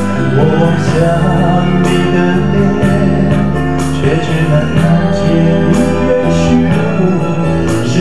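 A man singing into a handheld microphone over music with sustained chords and a steady beat.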